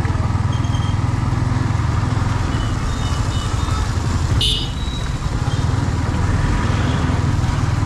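Motorcycle on the move: a steady engine drone mixed with wind rush on the microphone. A short sharp high sound cuts in about halfway through.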